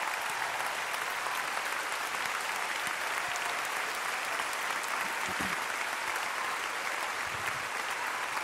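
Large audience clapping steadily, a dense, even wash of applause.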